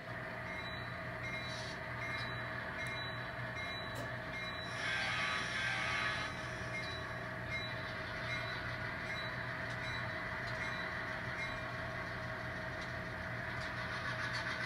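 Model train locomotive running steadily as it pulls a couple of cars ahead, with a continuous low hum. There is a brief rise in hiss about five seconds in.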